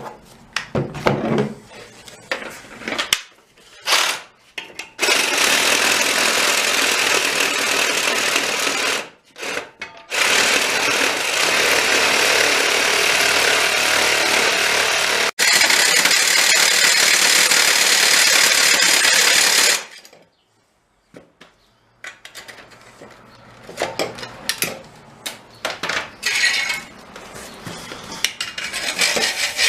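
Milwaukee cordless Sawzall reciprocating saw cutting into the metal shell of a catalytic converter in three runs of about four to five seconds each. Clicks and knocks of handling come before and after.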